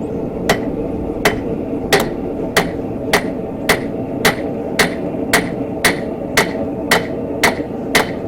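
Hand hammer striking a hot steel bar on an anvil in a steady rhythm of about three blows every two seconds, each blow with a short metallic ring, forging a chisel point on the end of the bar.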